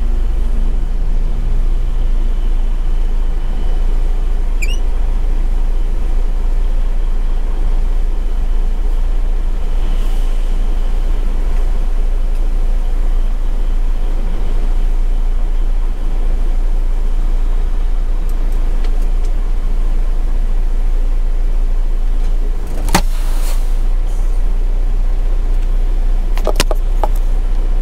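Semi truck's diesel engine idling, a steady low rumble heard inside the cab. A sharp click comes near the end.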